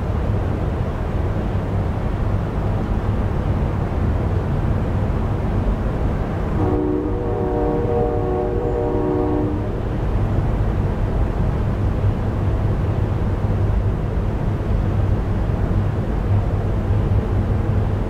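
Synthesized recreation of a distant Nathan K5LLA five-chime train horn sounding one blast of about three seconds, starting about seven seconds in, over a steady low rumble of background ambience.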